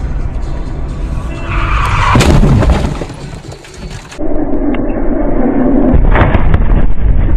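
Car collision recorded from inside a car on a dashcam: steady road noise, then loud crashing impacts as an oncoming car slides into it and the car is thrown over.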